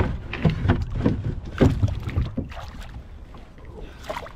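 Irregular knocks and splashes around a kayak's hull, several close together in the first couple of seconds, then quieter, over a low wind rumble on the microphone.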